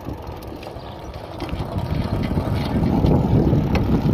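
Wind rumbling on the microphone of a rider on a moving bicycle, growing louder about a second and a half in.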